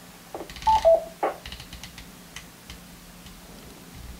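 Icom IC-7100 transceiver's front panel being worked: a couple of clicks and a short two-note beep that drops in pitch about a second in, then a run of light ticks as a knob is turned to set the RF power.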